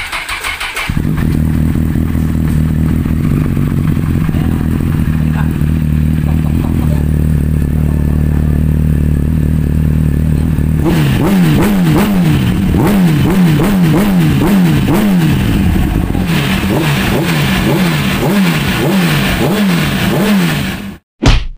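A 2007 Honda CBR1000RR's inline-four engine, through an Akrapovic carbon slip-on exhaust, cranks briefly and catches about a second in, on its first start after an oil change. It idles steadily, then from about halfway is revved in a quick series of throttle blips, each rising and falling in pitch, before the sound cuts off suddenly near the end.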